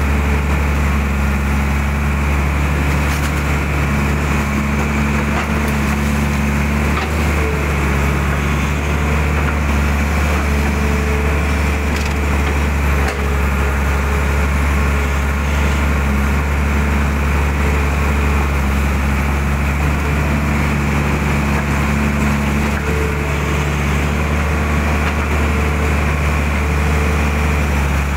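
Mitsubishi excavator's diesel engine running steadily under working load, heard from the cab, with a higher hum that comes and goes as the boom and bucket move through the mud and water.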